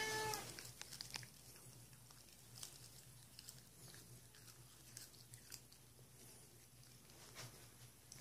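A tabby cat gives one short meow at the very start, then faint crisp clicks of it biting and chewing blades of cat grass.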